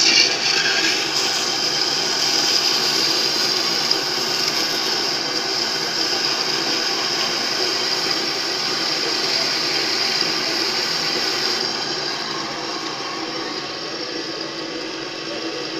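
REX Mantis 180 band saw running and cutting metal: a steady motor hum under a high-pitched whine. About twelve seconds in, the high whine drops away and the saw runs on a little quieter.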